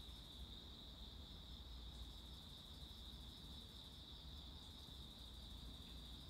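Insects trilling: a faint, steady, high-pitched trill that runs without a break.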